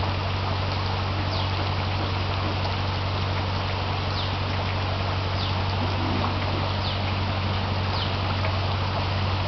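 Steady wash of running floodwater and rain, under a low steady hum. A short, high, falling chirp repeats about once a second.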